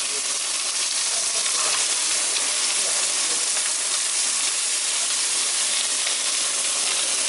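A grill full of fish sizzling: a steady, even hiss of fat and moisture frying on the hot surface.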